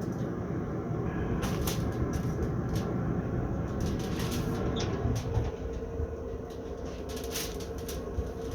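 Steady low rumble with scattered clicks and rustles of handling as smoked pork ribs are lifted out and set on foil; a faint steady hum comes in about halfway.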